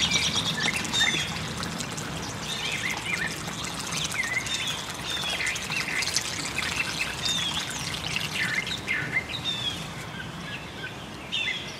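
Water trickling and pouring from the open end of a cut copper water service line into a muddy puddle, with birds chirping repeatedly over it.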